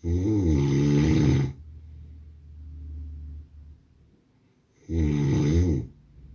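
Man snoring: two loud snores about five seconds apart, the first about a second and a half long and the second about a second, with a softer breath between them.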